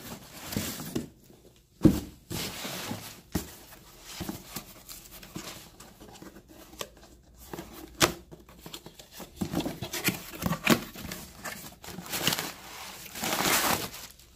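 Cardboard boxes being handled and unpacked: rustling and scraping of cardboard, broken by sharp knocks, the loudest about two seconds in, and a longer rustle near the end.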